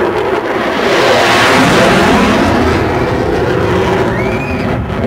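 An aircraft engine passing by at an airshow, swelling to a peak about a second and a half in, then fading.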